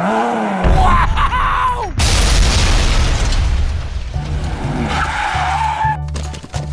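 Edited sound effects over background music: gliding tones, then a sudden loud noisy burst about two seconds in, like a skid or crash, over a steady bass line.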